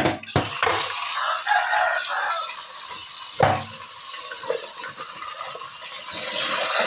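Tap water running from a hose into a metal pot as food is rinsed by hand in a stainless-steel sink, a steady hiss. The pot knocks against the sink at the start and again about three and a half seconds in.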